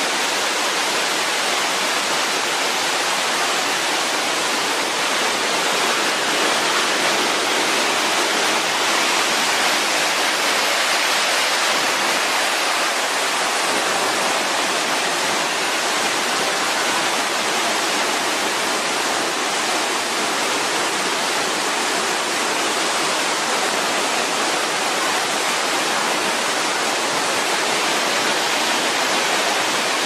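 Waterfall pouring down a rock face: a steady rush of falling water.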